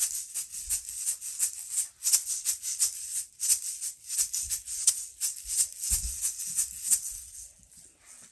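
Hand shakers shaken in a quick, even rhythm of about four shakes a second as a rain sound effect, dying away near the end.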